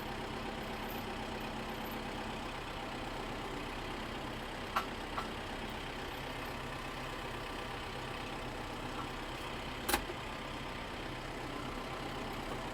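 Tractor engine running steadily, hooked by a chain to pull net wrap out of a baler, with a couple of sharp clicks about five seconds in and a single sharper knock, like a metal clank, about ten seconds in.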